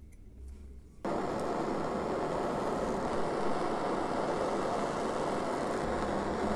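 A handheld gas torch flame hissing steadily as it heats a brass tube joint for soldering, starting abruptly about a second in.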